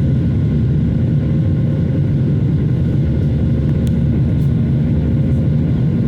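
Steady low roar of a Boeing 737-800's engines and airflow heard from inside the cabin after takeoff, with faint steady tones above the rumble and a small tick near the middle.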